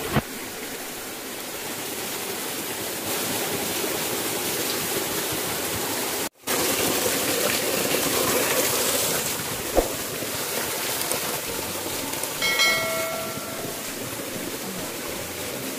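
Steady rushing of a small jungle stream cascading over rocks. The sound cuts out for a moment a little over six seconds in, there are a couple of single knocks, and a short pitched tone is heard near the end.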